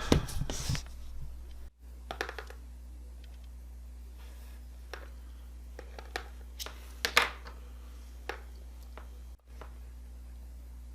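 Scattered small clicks and scrapes of a tiny screwdriver working a minute screw out of an Apple Watch, over a steady low hum. The clicks come a few at a time, with a cluster at the start and the sharpest one about seven seconds in.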